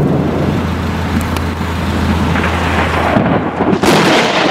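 Thunderstorm: a steady rush of rain and wind with thunder. A low hum cuts out about three seconds in, and a sharp crack comes shortly before the end.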